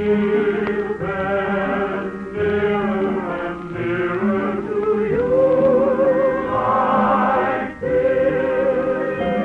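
Operetta singing with orchestra: voices holding long, wavering notes, with a short break near the end.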